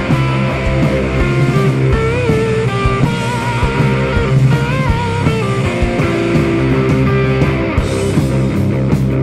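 Rock music with guitar as a backing track, with a few bent, wavering notes about two and four and a half seconds in.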